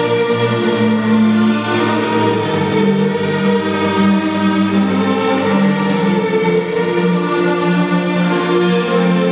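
Slow string music, a violin over lower bowed strings, playing long held notes that change every second or so.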